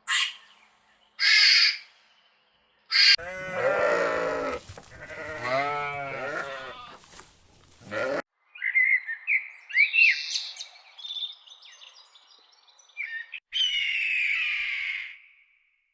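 A run of animal calls: a few short harsh caws in the first three seconds, then a long wavering bleat lasting about five seconds, then high chirping and squeaking calls.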